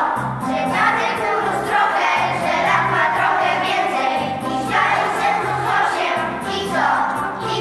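A group of young children singing a song together in unison, over an instrumental accompaniment with steady low notes.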